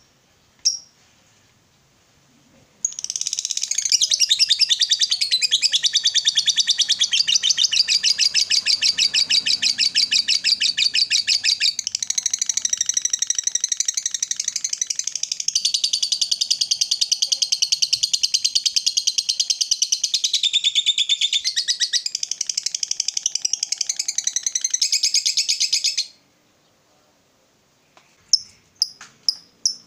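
Fischer's lovebird giving a long 'ngekek' chatter: a very rapid, unbroken run of shrill, high chirps that starts about three seconds in, lasts over twenty seconds and stops abruptly. A single chirp comes just before it, and a few separate chirps come near the end.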